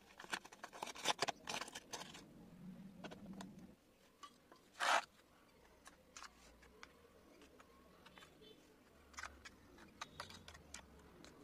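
Metal spoon working and smoothing wet paste in a plastic mold: scattered clicks and soft wet scrapes, with one louder scrape about five seconds in.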